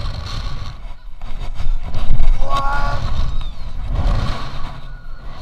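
Wind rushing over the action camera's microphone as a bungee jumper swings on the cord after the free fall. A short cry about two and a half seconds in.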